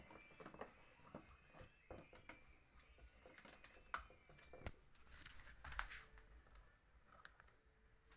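Near silence with faint scattered clicks and short rustles: hands handling a plastic sewing machine and its paper manuals.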